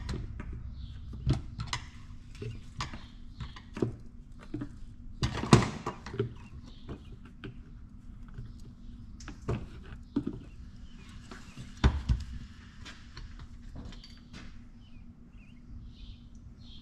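Steel cam followers and small engine parts clinking and tapping as they are handled and fitted into a Detroit Diesel 2-53 cylinder head, in irregular light knocks, with two louder knocks about a third of the way in and again later.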